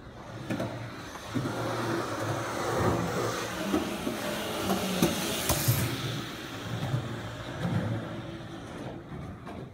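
Skateboard wheels rolling on concrete, getting louder as the board nears, with a few sharp clacks from the board around the middle, then fading as it rolls away.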